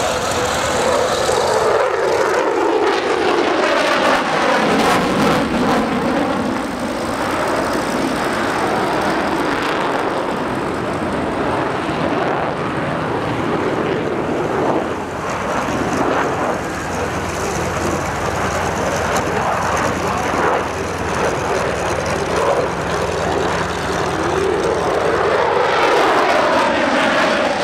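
Lockheed Martin F-22 Raptor's two Pratt & Whitney F119 turbofan jet engines, loud and continuous, falling in pitch as the jet passes in the first few seconds and rising again as it comes back near the end.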